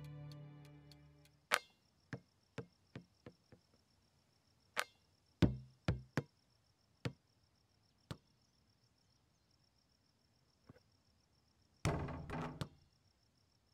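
A basketball bouncing on an outdoor court. The first bounces come quicker and weaker as the ball settles, more bounces follow, and near the end comes a louder cluster of hits as a shot is taken. A faint steady high chirring of insects runs underneath.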